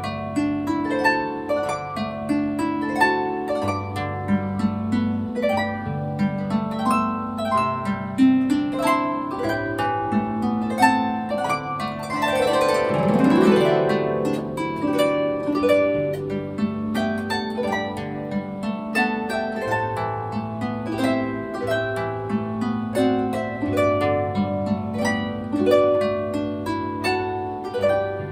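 Solo harp music: a gently plucked melody over sustained bass notes, with a glissando sweeping down and back up the strings about halfway through.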